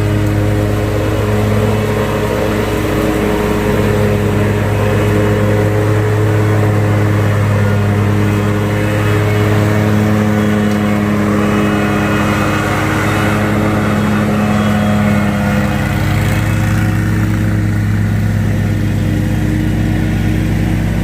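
Commercial zero-turn mower running steadily as it drives, a loud engine and hydrostatic wheel-motor drone with small shifts in pitch. The owner takes this loudness when driving for normal on these heavy, open-backed mowers rather than a fault.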